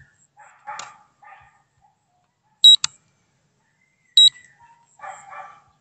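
Two short, high electronic beeps about a second and a half apart, each a quick double pulse. Quieter short rough sounds come before and after them.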